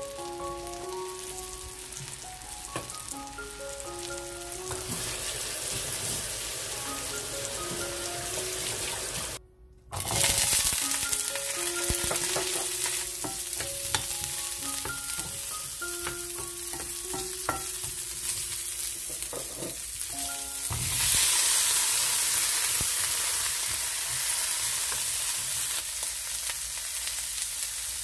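Food sizzling in butter in a stainless frying pan: sole fillets frying, then, after a brief dropout about nine seconds in, Brussels sprouts sautéing as a wooden spatula stirs them. A light background melody plays along until about three-quarters of the way through, after which the sizzle gets louder.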